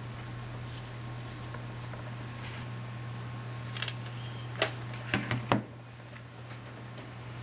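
Smartphone being handled on a table: a cloth lightly rubbing its casing, then a short cluster of sharp knocks and clicks a little past halfway as the phone is lifted, turned over and set back down. A steady low hum runs underneath.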